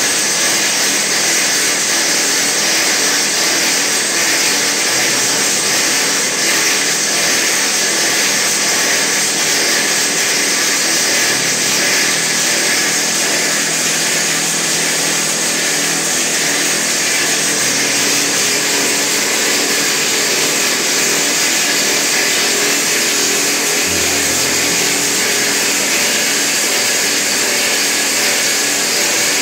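Rock drill on a tunnelling drill rig's boom drilling into the tunnel crown for pipe roofing, with water flushing the hole. It makes a loud, steady din throughout.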